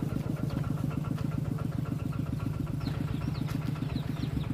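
Small single-cylinder engine idling steadily, with an even, rapid beat of about ten pulses a second.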